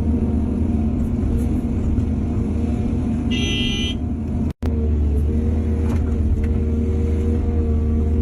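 Excavator diesel engine running steadily with a low rumble, with a brief high-pitched tone a little over three seconds in and a momentary break in the sound about four and a half seconds in.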